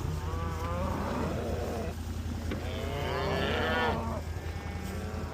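Cattle mooing: two drawn-out moos, each lasting about a second and a half, one in the first half and one in the second.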